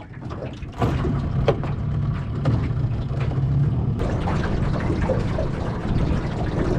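Small aluminium boat under way: its outboard motor running steadily, with the rush of water along the hull. The motor noise comes up strongly about a second in.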